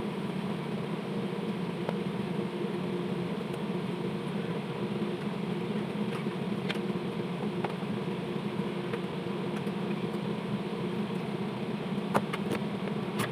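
Steady mechanical hum of a running machine, with a few faint clicks about halfway through and near the end.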